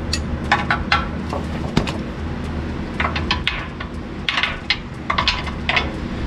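Hand tools clinking and tapping against metal under a truck: irregular clusters of short, ringing metallic clicks as a bolt is worked on, over a steady low hum.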